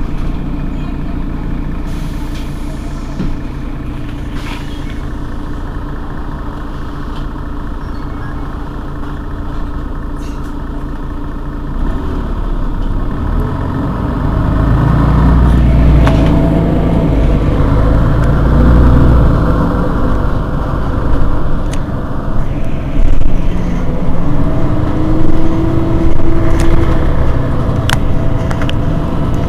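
Mercedes-Benz Citaro G C2 articulated bus's diesel engine idling steadily. About twelve seconds in it pulls harder and runs louder for several seconds, and near the end a brief whine rises in pitch.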